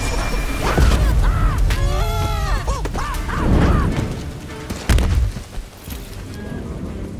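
Action-scene soundtrack: a cartoon Japanese macaque's shrieks, a string of short rising-and-falling cries over dramatic music and deep booms, then one hard impact about five seconds in.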